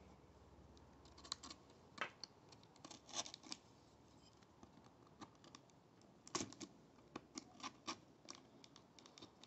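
Fingers picking and scratching at packing tape on a cardboard box: irregular short scratches and clicks, the loudest about two seconds in and again after six seconds.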